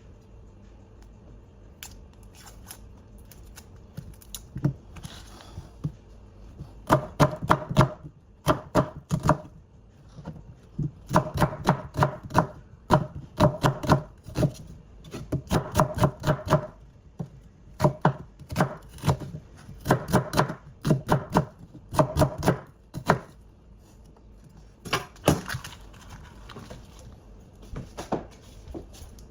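Knife chopping food on a cutting board in quick runs of sharp knocks, about four or five strokes a second, with short pauses between the runs.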